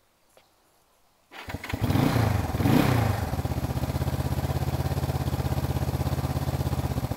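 1973 Honda CB450's twin-overhead-cam four-stroke vertical-twin engine starting from cold. It catches about a second and a half in, is revved up twice, then settles into a steady, evenly pulsing idle.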